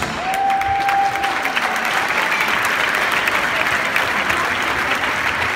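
Audience applauding steadily, with one held high tone lasting about a second near the start.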